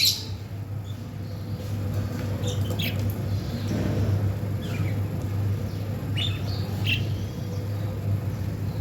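Budgerigars giving short, scattered chirps, about six spread over several seconds, above a steady low hum.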